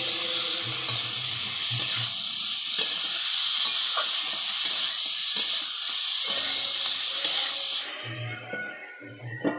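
Chicken pieces sizzling as they are fried and stirred with a spatula in a large metal kadai. The sizzle drops away sharply about eight seconds in, as a lid goes over the pan.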